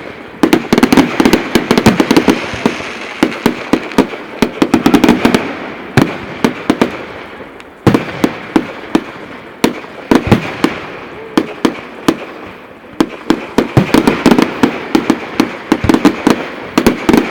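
Display fireworks going off in rapid volleys of sharp bangs and crackles, almost without pause, easing briefly a few times between salvos.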